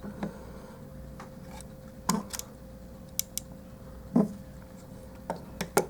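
Plastic parts and joints of a Transformers action figure clicking and tapping as they are rotated and handled: a scattered series of light clicks, some in quick pairs.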